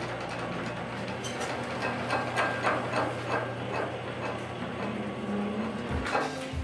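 Wooden great wheel lathe running, its mechanism clattering with a steady rhythm of about three knocks a second.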